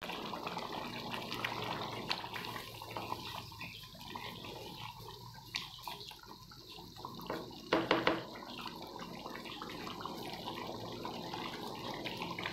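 Mutton korma gravy bubbling in a pan as it simmers and cooks down, with small pops throughout and a brief louder clatter about eight seconds in.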